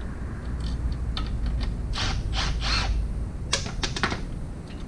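Irregular metallic clicks, clinks and scrapes of brake parts and tools being handled as the brake caliper is hung off the frame, with a quick cluster of sharp clicks about three and a half seconds in.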